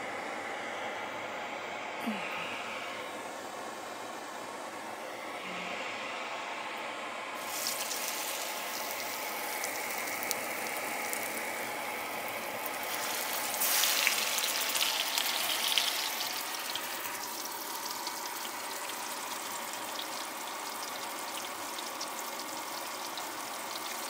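Cornmeal-coated cod fillets frying in hot olive oil in a cast iron skillet: a steady low hiss, then about seven seconds in a fillet goes into the oil and it starts to sizzle. The sizzle swells loudest for a couple of seconds around the middle as a second fillet goes in, then settles into steady frying.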